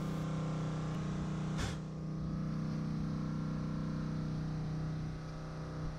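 A steady low mechanical hum, with a single click about one and a half seconds in.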